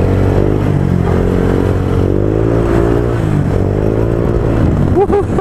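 Honda Click V2 scooter's single-cylinder engine running through a JVT V3 adjustable aftermarket exhaust, revving up and easing off several times, its pitch rising and falling.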